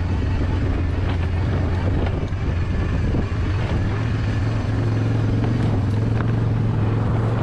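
A vehicle engine running at a steady low hum, with the rumble and faint rattling of the rig rolling behind a harnessed dog team.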